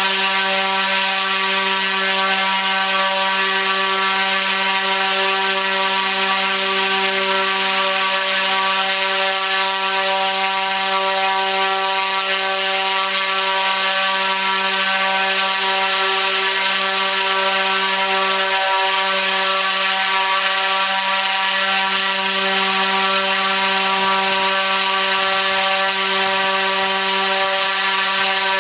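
T-Motor U13 100kV brushless motor spinning a 29-inch three-blade carbon propeller at full throttle on a 12S battery: a steady, even hum of stacked tones over a rush of air from the prop.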